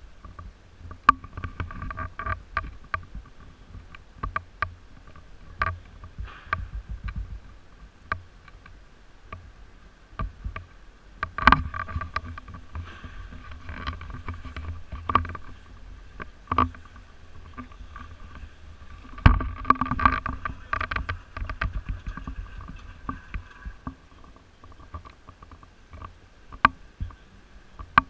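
Knocks, scuffs and rumbling of a GoPro being handled, carried along a pavement and set down on a wooden pallet. Behind them runs a steady faint machine hum with a few fixed tones.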